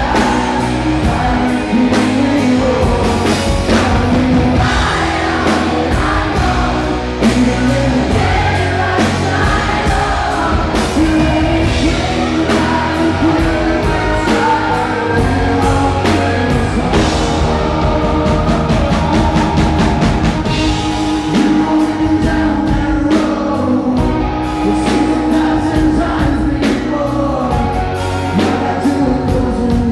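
Live rock song played loud by a band: a male lead vocal sings over electric guitar and drums, recorded from the crowd near the stage.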